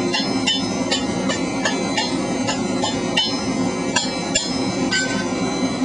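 Blacksmith's hammer striking a hot steel pipe on an anvil in a steady rhythm, about two to three blows a second, each with a bright metallic ring, as the pipe's tip is worked into a point and forge-welded shut.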